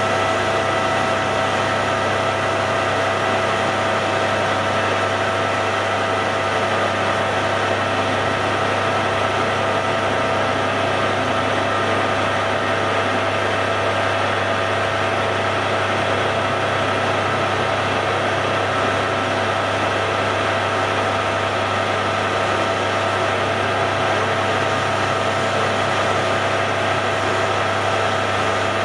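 Hare and Forbes AL335 metal lathe running steadily under power, a constant motor and gear hum with a steady high whine over it.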